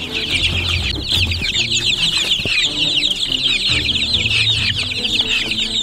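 A brooder full of young chicks peeping, many short, high, falling calls overlapping without a break.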